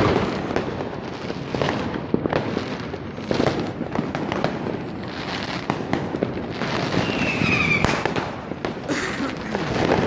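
Fireworks and firecrackers going off all around in a dense, irregular run of bangs and crackles, with a brief high whistle about seven seconds in.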